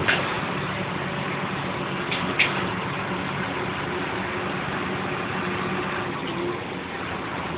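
A moving road vehicle's engine and road noise, a steady hum with a few short clicks or rattles: one right at the start and two close together about two seconds in.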